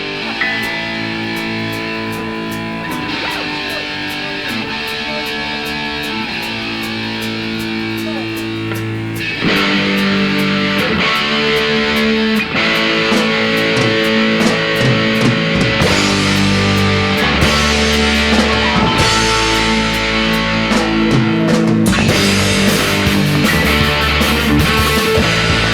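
Instrumental rock music led by electric guitars over bass and drums, without vocals; the band comes in fuller and louder about nine seconds in.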